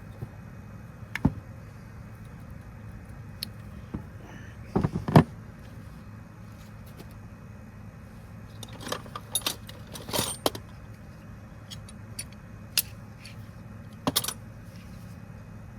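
Metal tools and alternator parts being handled on a workbench: scattered metallic clinks and clatters, a few at a time, the loudest cluster about five seconds in, over a steady low hum.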